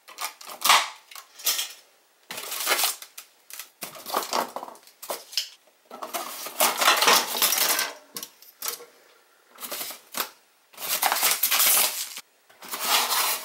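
Plastic drone propellers and other packed parts being pulled out of a polystyrene foam packing insert: foam scraping and hard plastic clattering in irregular bursts with short pauses between.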